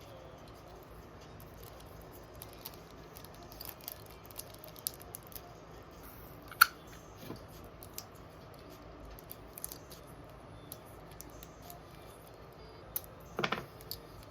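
Small objects being handled on a desk: scattered light clicks and taps. One sharp click comes about halfway through and a short cluster of taps near the end.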